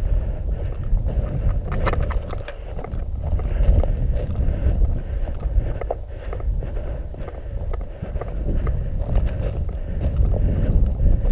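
Footsteps through dry grass with gear rustling and knocking, close to a body-worn camera, over a low wind rumble on the microphone.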